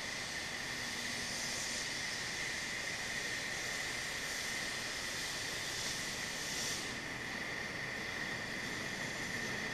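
Distant narrow-gauge steam locomotive letting off steam: a faint steady hiss that thins out about seven seconds in, over a constant high-pitched whine.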